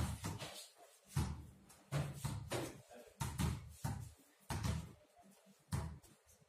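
Basketballs bouncing on concrete paving: several balls dribbled at once, giving an irregular run of heavy thuds roughly one a second.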